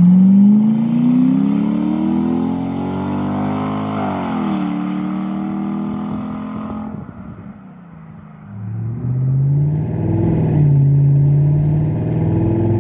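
Straight-piped 2001 Jaguar XJ8's 3.2-litre V8, exhaust open from the manifold, accelerating away with its note rising. The pitch drops at a gear change about four and a half seconds in, and the car then fades into the distance. From about eight and a half seconds the same engine is heard from inside the cabin, running steadily.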